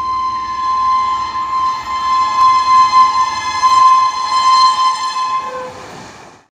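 Train horn blowing one long, loud, steady blast, fading out and stopping shortly before the end.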